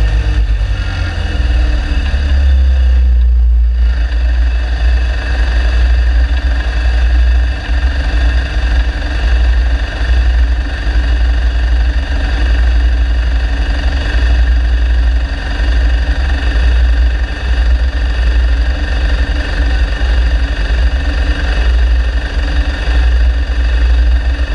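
Dune buggy engine idling steadily, heard from the driver's seat of the stopped buggy.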